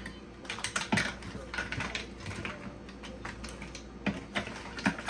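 Irregular clicking and clattering of seafood boil (crab legs, mussel shells, potatoes, sausages) being tossed and mixed with sauce in a bowl, with sharper knocks about a second in and near the end.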